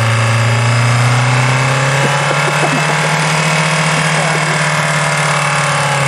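Car engine running at a steady speed, a loud, even drone that rises slightly in pitch about two seconds in.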